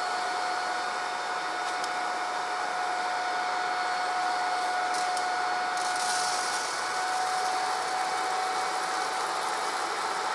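KAKA-F001 coffee bean cooler's fan running steadily with a steady motor whine, drawing air down through the mesh to cool freshly roasted beans quickly and stop the roast. About six seconds in, roasted beans slide out of the roaster box and patter onto the cooler's mesh.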